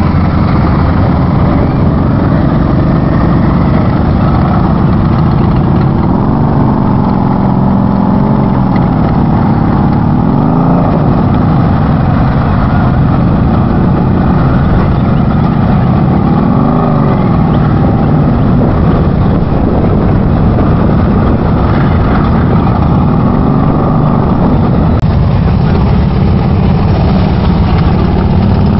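Several motorcycle engines running at low speed over a steady loud rumble, with a few revs that rise and fall as riders work through slow-speed maneuvers.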